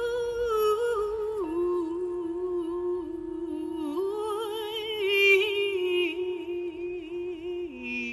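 A wordless singing voice improvises a slow melody that slides between notes over a steady drone held on one pitch. It is a sound-healing chant that moves higher and louder about five seconds in, then steps down low near the end.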